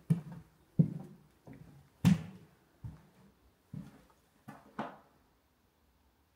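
Footsteps on bare wooden floor joists: a series of dull thuds, roughly one or two a second, stopping about five seconds in.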